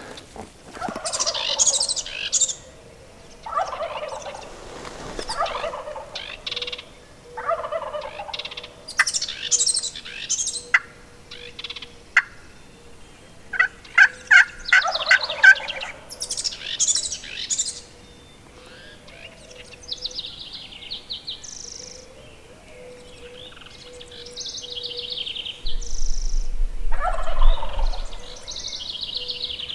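Merriam's wild turkeys gobbling again and again, each gobble a rattling burst of a second or two. Songbirds trill in between.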